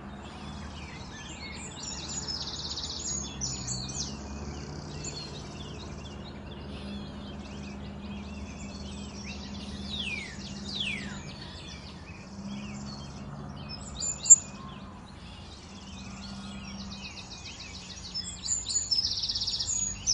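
Wild birds singing in woodland: repeated rapid high trills and quick falling whistles, over a faint low steady hum. A single sudden sharp sound stands out about fourteen seconds in.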